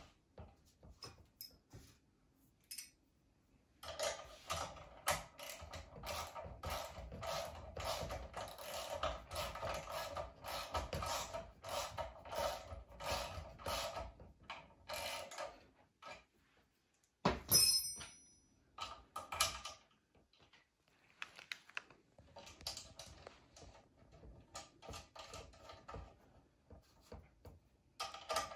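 Socket ratchet wrench clicking in long rapid runs as bolts are run down, starting a few seconds in and again near the end. Between the runs comes one sharp metallic clink that rings briefly, the loudest sound here.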